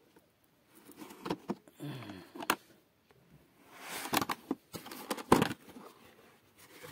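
Hard plastic drill carrying case being unlatched and opened: a series of sharp plastic clicks and knocks from the latches and lid, starting about a second in, with the loudest snap a little past five seconds in.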